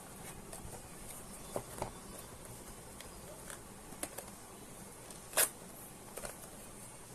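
Keyboard packaging being handled during unboxing: scattered light clicks and rustles, with one sharper, louder click about five and a half seconds in.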